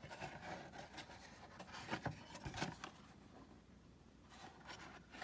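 Faint rustling and a few light taps from handling a model kit's cardboard box and its paper contents.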